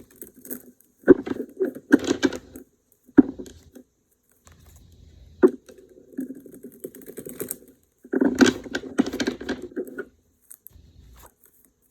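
Tarot cards being shuffled by hand: two bursts of rapid flicking clatter, with a couple of single taps of cards between them.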